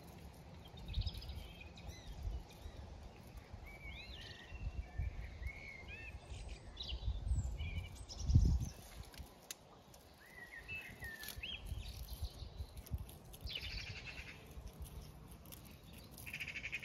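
Birds chirping and calling in short gliding notes, with a buzzy call near the end. Low thuds now and then, the loudest a little after the middle.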